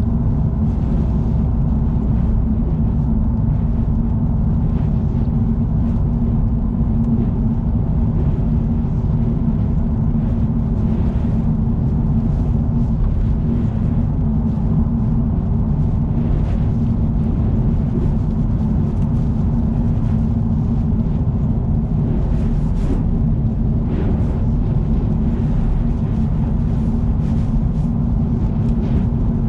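Car driving at expressway speed: a steady low road-and-engine rumble with a constant hum, and faint short hissy swishes now and then.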